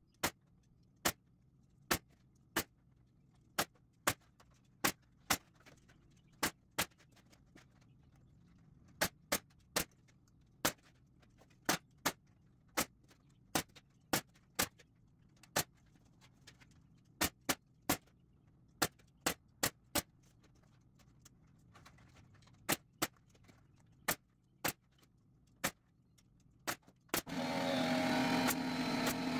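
Pneumatic stapler firing into a wooden frame to fasten chicken wire: about thirty sharp single shots, some in quick pairs, spaced irregularly. Near the end a loud steady machine noise with a hum starts abruptly.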